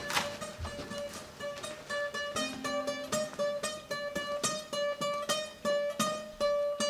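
Guitar being picked, with one note plucked over and over in a quick even rhythm and other notes around it, a slow eerie run of plucked notes.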